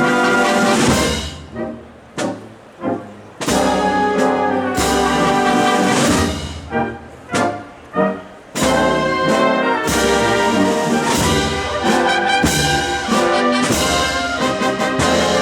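Spanish processional band (banda de música) playing a march, led by trumpets and trombones. Twice the band drops to a softer passage cut by a few short loud chords, then comes back in full from about halfway through.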